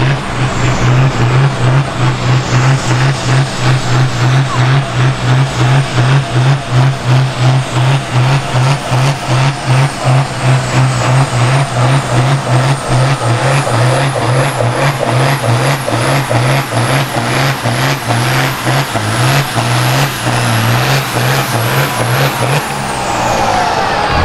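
Diesel tractor engine at full load, pulling the weight sled in second gear, its low note pulsing rapidly and evenly. A thin high whine above it climbs about halfway through, and the engine drops away about two seconds before the end.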